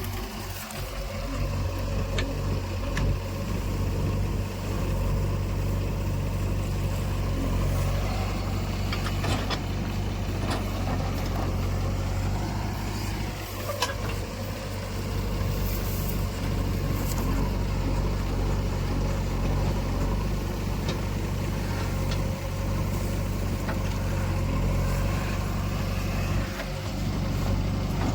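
Diesel engine of heavy machinery running steadily, with a few short knocks and clicks over it.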